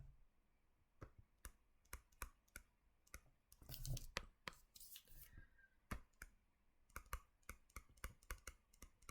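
Near silence broken by faint, irregular clicks and taps, with a soft scratching about four seconds in.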